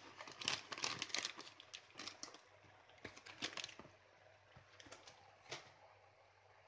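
Plastic packet of grated cheese crinkling and rustling as it is handled and shaken out over pasta in a pan, faint and in several short bursts of quick crackles.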